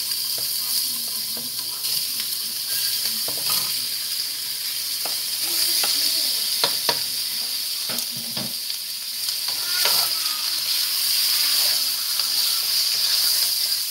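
Chicken pieces frying in hot oil with a steady sizzle, while a wooden spatula stirs them, knocking and scraping against the pan several times.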